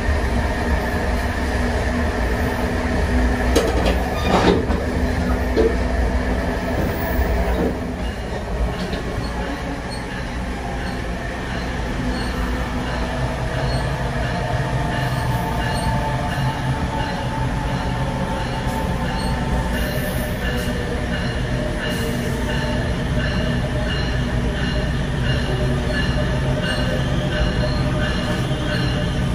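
Bombardier ALP-46 electric locomotive's MITRAC GTO-VVVF traction inverter whining with several steady tones over the low rumble of the moving train, heard from the vestibule of the coupled car. A short clatter of wheels comes a few seconds in. About eight seconds in the inverter tones change to a new pattern, the PWM phase shift the locomotive makes around 23 mph.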